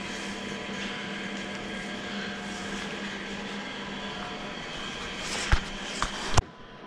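Steady background hum with a few faint steady tones. Near the end come three sharp clicks, and after the last one the hum drops away abruptly.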